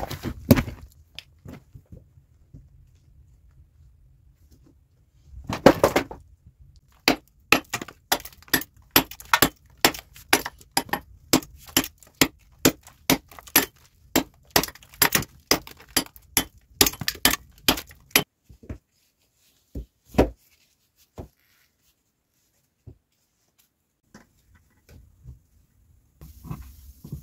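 A rock being struck again and again to break it: sharp, hard knocks about twice a second for some ten seconds. Before them come a single heavy thud at the start and a short scraping rush about six seconds in.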